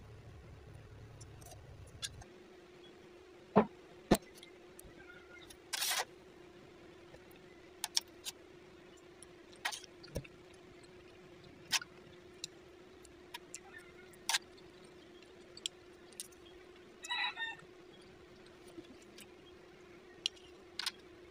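Scattered sharp clicks and taps of a metal fork against a ceramic plate, the loudest two about three and a half and four seconds in, over a steady hum. A short chirping sound comes about seventeen seconds in.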